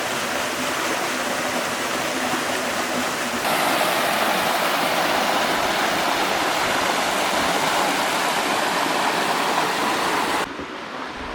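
Steady rush of falling water from Switzer Falls, a waterfall on the Arroyo Seco. It gets louder and brighter about three and a half seconds in and drops off suddenly near the end.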